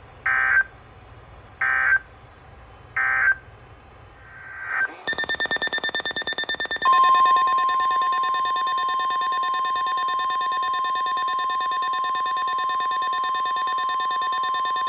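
Emergency Alert System signalling: three short bursts of digital data tones, the end-of-message code closing the previous warning, then from about five seconds in the next alert's fast pulsing tones, settling into a long, steady, buzzy alert tone near 1 kHz, the weather-radio warning alarm.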